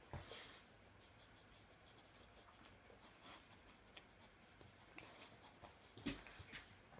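Near silence with faint scratching and rustling from an American Bulldog and a miniature pinscher play-wrestling on a cushion, and a soft knock about six seconds in.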